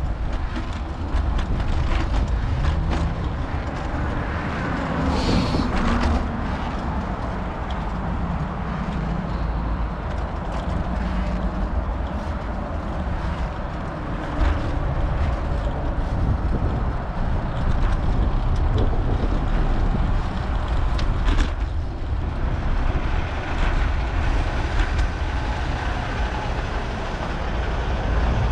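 Wind rumbling over a bike-mounted action camera's microphone, mixed with tyre and road noise from a moving fixed-gear bicycle. A few sharp knocks come from bumps in the road, and motor traffic passes.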